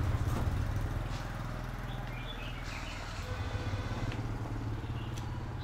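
A small motorbike engine humming low as it passes close by, fading over the first couple of seconds to a faint steady hum.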